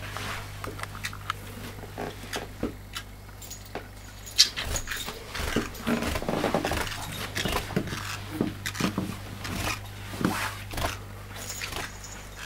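Scattered soft taps and thumps of a parrotlet hopping up and down carpeted stairs, over a steady low hum. About six seconds in there is a short stretch of rough, buzzy chatter from the bird.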